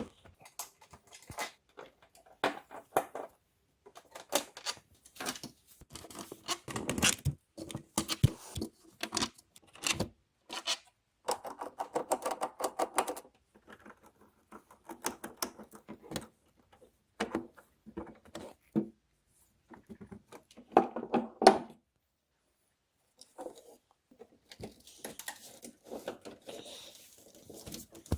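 Hands working on the key action of a Yamaha Clavinova CLP-230 digital piano during a stopper-felt replacement: irregular clusters of small plastic clicks, knocks and rattles, with a short pause a little after twenty seconds in.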